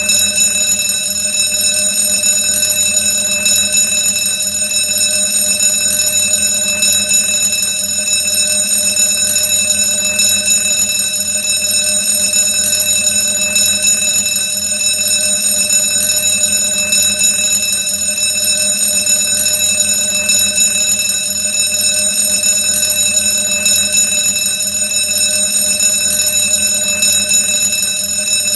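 Old-fashioned alarm bell ringing loudly and continuously, one steady unbroken ring.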